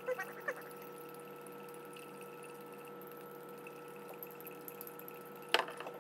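A stirrer clinking against a glass mason jar while sugar is stirred into water: a few light clinks at the start and one sharper clink near the end, over a faint steady hum.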